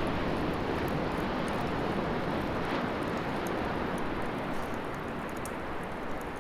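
Wood fire burning in a fire stand: a steady rushing of flames with scattered small crackles and pops.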